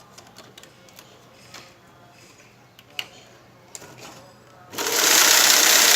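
A few light clicks, then nearly five seconds in a homemade model combine harvester, powered by a 250-volt electric motor, switches on and runs with a loud, steady mechanical whir.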